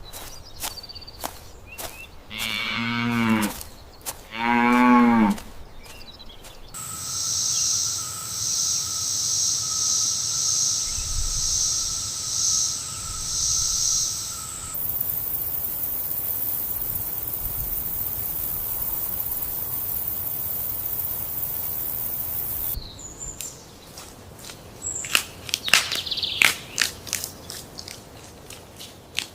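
Cow mooing twice, two drawn-out calls each about a second long. After them comes a long stretch of steady high buzzing and hiss, then scattered clicks near the end.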